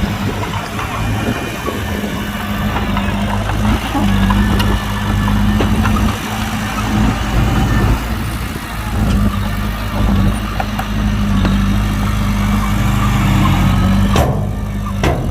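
Heavy diesel engine running at a steady speed, a deep even hum under a continuous rumble.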